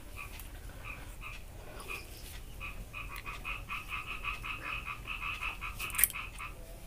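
A small animal calling in rapid trains of short pulses, scattered at first, then a steady run of about six calls a second from about three seconds in. There is one sharp click near the end.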